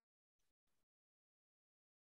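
Near silence: the audio is essentially muted, with no audible sound.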